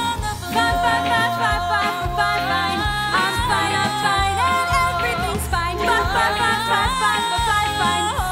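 Musical-theatre song: a woman singing long held and sliding notes with no clear words over an instrumental backing.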